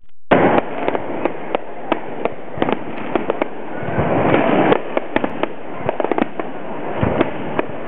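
Fireworks going off: a rapid, irregular string of sharp bangs over a continuous wash of noise, starting a moment in.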